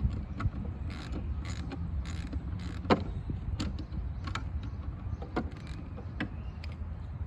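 A hand tool working on the underside of an upturned walk-behind lawn mower deck: a quick run of short scraping strokes, then scattered sharp metal clicks and knocks, over a steady low rumble.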